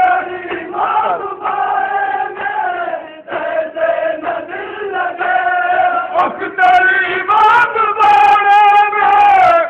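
Male voices chanting a noha, a Shia lament, in long drawn-out held notes, with a short break about three seconds in.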